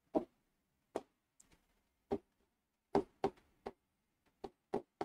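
A pen tapping against a digital writing board as letters are written: about nine short, quiet taps at uneven intervals.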